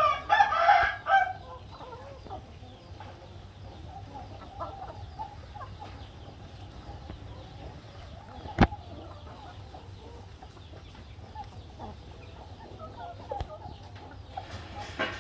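Game roosters and hens clucking quietly while feeding, opening with a loud chicken call in the first second or so. A single sharp knock about eight and a half seconds in.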